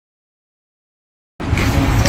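Dead silence for more than a second, then a loud noise with a deep rumble cuts in suddenly near the end.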